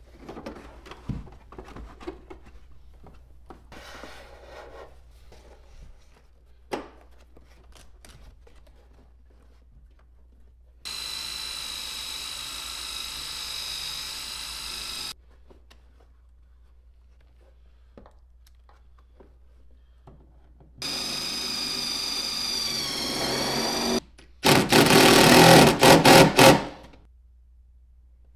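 Faint rustling and clicks of wires and carpet being handled, then a cordless drill spinning a wire brush against bare car-body metal for about four seconds. After a pause a drill runs again, its pitch sagging under load. Then the loudest sound, an impact driver hammering in a 10 mm ground bolt for a couple of seconds.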